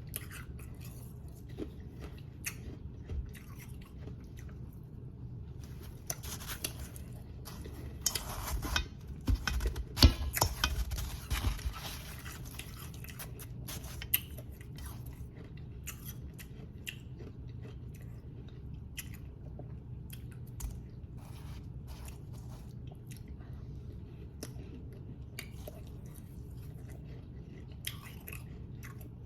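A person chewing and crunching powdery, snow-like ice close to the microphone, in scattered crisp crunches. A dense run of loud crunching comes about eight to twelve seconds in.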